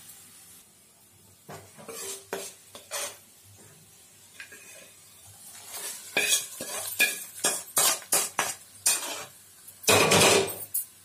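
Metal spoon clinking and scraping against a steel kadai as hot oil tempering is tipped out into a steel bowl: a few scattered clinks, then a quick run of scrapes and knocks, with a louder burst of noise near the end.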